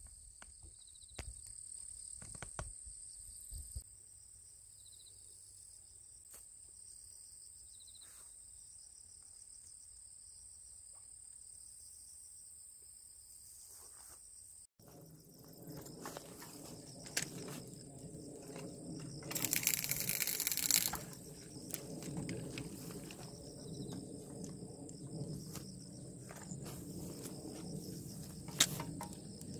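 Insects chirring in a steady high-pitched drone. About halfway through, louder low rumbling background noise comes in under it, with a brief rush of noise about two-thirds of the way through.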